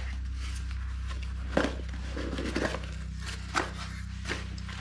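Oscillating tool accessories and their packaging being handled: a few scattered clicks and rustles over a steady low hum.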